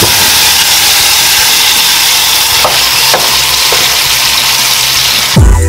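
Chunks of fried pork sizzling loudly as they are tipped into hot pork fat and red sauce in an aluminum pot and stirred, with a few light spoon scrapes. The sizzle cuts off suddenly near the end as electronic music starts.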